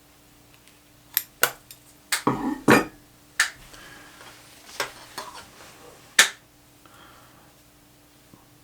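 Irregular sharp clicks and knocks of tools and material being handled at a sewing bench, with a short clattering cluster about two seconds in.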